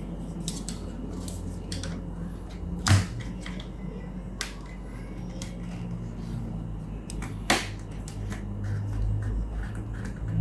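Scattered clicks and knocks of objects being handled on a table, the loudest about three seconds in and again about seven and a half seconds in, over a steady low hum.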